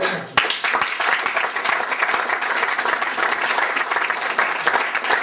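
Audience applauding at the end of a lecture: a dense, steady clapping that starts about half a second in.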